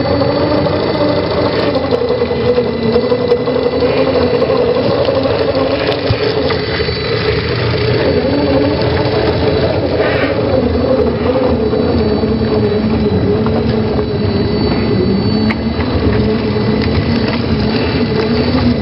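Engine running sound of a 1/10-scale RC Land Rover Defender D110 crawler: a steady low engine note that wavers a little in pitch as it drives and climbs.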